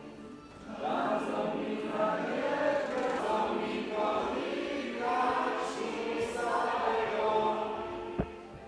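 A group of school students, men and women, singing a Polish patriotic song together, starting about a second in.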